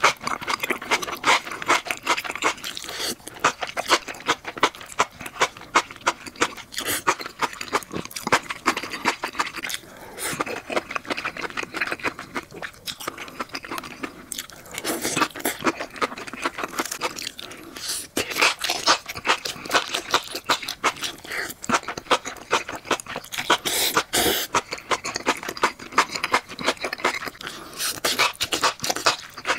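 Close-miked eating of enoki mushrooms in spicy sauce: the strands are drawn into the mouth and chewed, giving many rapid clicks throughout.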